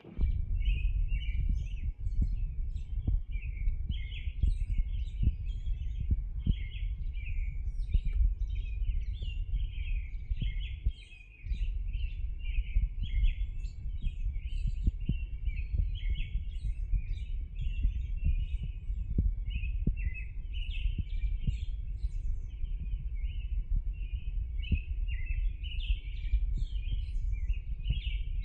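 Many birds chirping together in an early-morning dawn chorus: a dense, continuous run of short, overlapping high chirps. Beneath it is a steady low rumble with small clicks, which drops away briefly a little before the middle.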